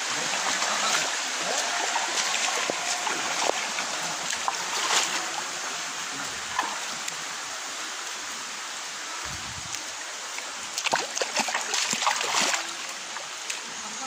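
Steady rush of a shallow stream with splashes of feet wading through the water, a quicker run of louder splashes about three-quarters of the way through.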